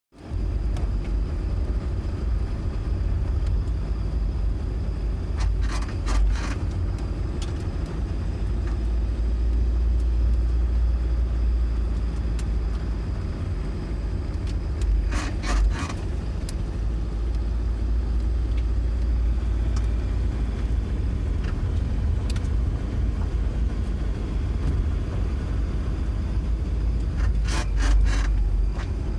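Ford Transit Mk7 van driving, with a steady road and engine rumble, and three short bouts of rapid squeaking about ten seconds apart as it goes over speed bumps. The cause of the squeak is unknown.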